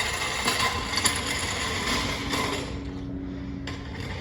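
Tire shop tools at work: rapid mechanical clicking and rattling, like a ratchet or wrench on the wheel nuts, dying down about two and a half seconds in.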